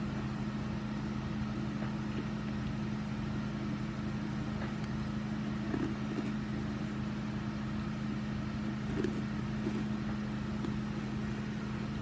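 A steady low machine hum, with a couple of faint soft sounds about six and nine seconds in.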